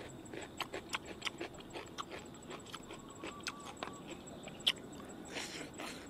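Close chewing of a mouthful of raw cucumber: irregular crunches and wet mouth clicks.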